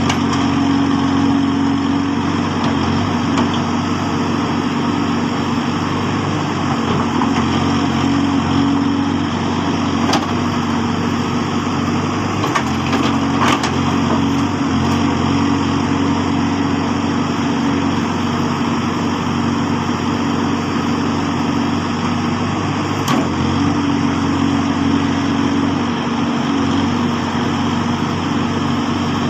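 Case backhoe loader's diesel engine running steadily under varying load, its hum swelling and easing every few seconds as it works, with a few sharp knocks from the machine.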